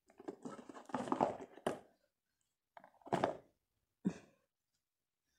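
Cardboard phone box being opened: the tight lid scrapes and rustles as it is worked off the base for about two seconds. Two shorter handling noises follow, about three and four seconds in.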